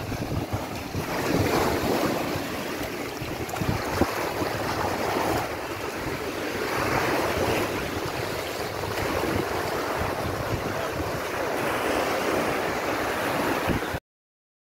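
Sea waves washing onto the shore, swelling and easing every few seconds, with wind buffeting the microphone. The sound cuts off suddenly near the end.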